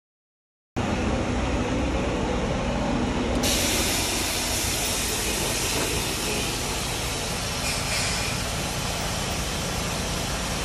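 Semi-truck tractor's air-ride suspension dumping its air with a steady hiss as the fifth wheel lowers, over the low rumble of the idling diesel engine. The sound starts abruptly about a second in and turns sharper and hissier a few seconds later.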